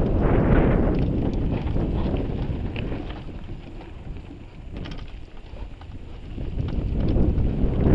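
Wind rushing over the action camera's microphone as a mountain bike rides down a dirt singletrack, with tyre noise and scattered clicks from the bike. It eases off for a few seconds in the middle and builds again near the end.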